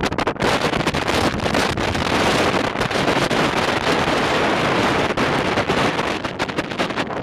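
Strong gusty wind buffeting the microphone: a loud, steady rushing noise with rapid flutter.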